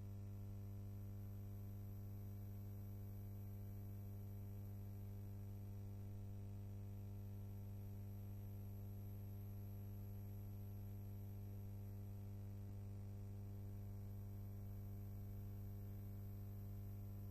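Steady low electrical mains hum with a buzz of overtones and a faint hiss; nothing else is heard.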